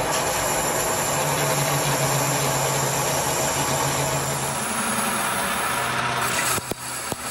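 Metal lathe turning a steel gear blank, the cutting tool taking a cut with an even hiss over the machine's steady hum. The sound dips briefly twice near the end.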